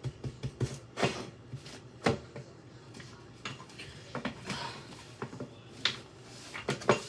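Kitchen clean-up: powder being brushed off a counter into a sink, with soft scraping and a string of irregular clicks and knocks of items on the counter and sink, a few of them louder.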